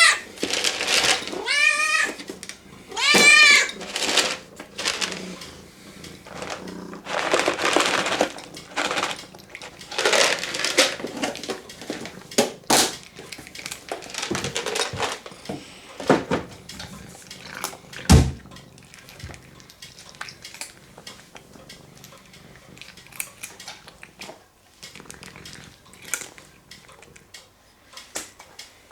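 Domestic cat meowing three times near the start. Then a stretch of noisy rustling, a couple of sharp clicks, and fainter scattered clicking.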